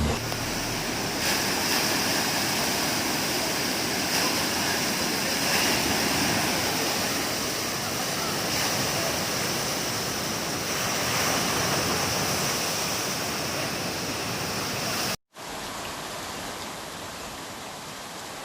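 Steady rushing of floodwater, a dense hiss with no separate events. It cuts off abruptly about fifteen seconds in and comes back quieter.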